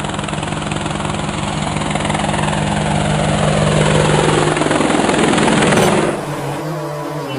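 Quadcopter drone rotors buzzing steadily, growing louder with a falling pitch sweep as it passes, then changing abruptly to a quieter, warbling sound about six seconds in.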